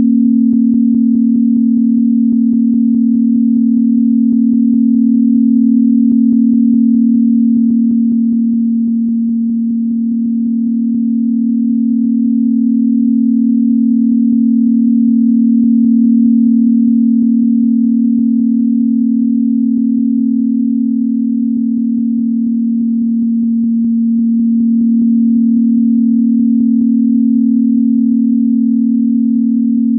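Synthesized 'healing frequency' tone: a steady, pure low tone a little above 200 Hz that slowly swells and dips in loudness.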